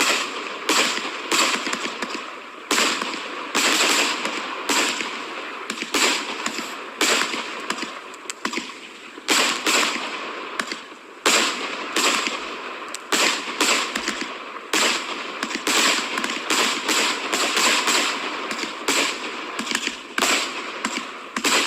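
Svea 120-shot, 30 mm fireworks display cake firing its tubes one after another: a rapid string of sharp bangs, about two a second.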